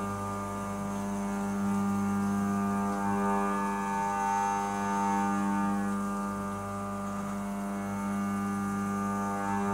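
SYIL X5 CNC mill's spindle driving an end mill through a metal workpiece under flood coolant: a steady droning tone with many overtones, its balance shifting as the cut loads and unloads.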